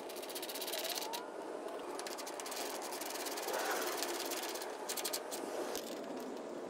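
A few small metal clicks and scrapes as grille bolts are started by hand into their bushings, over a steady background hiss.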